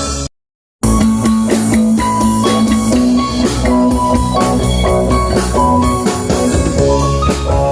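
Band music with guitar and drum kit playing, cut off by a sudden half-second dropout to silence just after the start before resuming.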